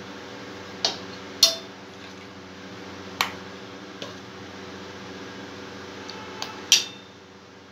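Stainless-steel ladle and bowls clinking and tapping as vadas are ladled from one bowl into another: about six sharp clinks, the loudest about a second and a half in and near the end, over a steady low hum.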